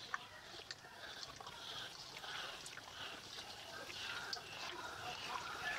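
Hand squishing and kneading raw mutton pieces in a wet spice paste with mustard oil in a brass bowl: soft irregular squelches with small clicks.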